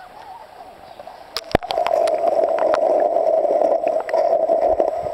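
Water sloshing over a camera's microphone as it goes under the river surface about a second and a half in, then a loud, muffled underwater rushing and gurgling that stops near the end.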